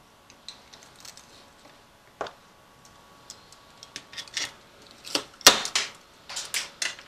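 Screwdriver and snips picking, prying and cutting at hardened potting compound inside a small metal e-bike voltage regulator housing: irregular scrapes, clicks and cracks, sparse at first and then a quick run of louder cracks, the sharpest about five and a half seconds in.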